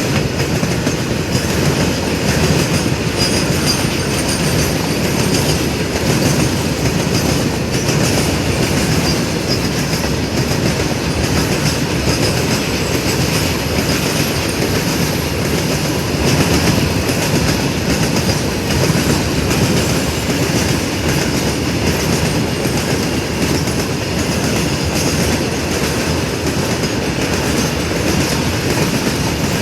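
Goods train rolling past, its wagons' wheels running steadily on the rails.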